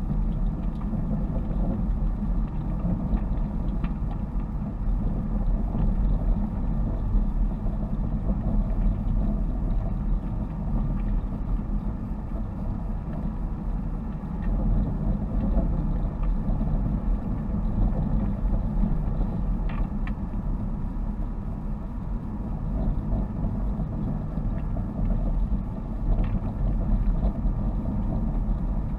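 A car's engine and road noise heard from inside the cabin while driving, a steady low drone, with a few faint clicks.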